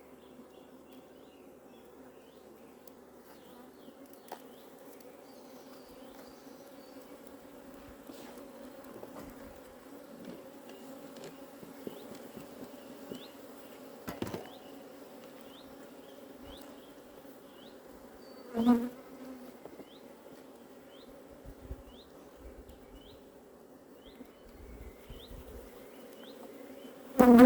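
Honeybees buzzing around an open hive, a steady hum. The buzz swells briefly and loudly twice, about two-thirds in and again at the very end, as a bee flies close.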